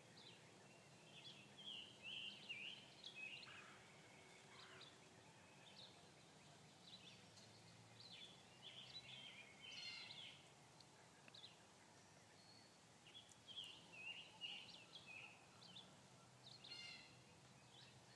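Faint birds chirping in scattered clusters of short, high calls over a low steady hiss of outdoor ambience.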